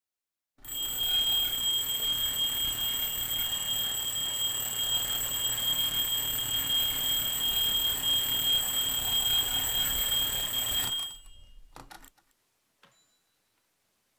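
Mechanical twin-bell alarm clock ringing continuously. It starts about half a second in and cuts off suddenly about eleven seconds in, followed by a few faint knocks.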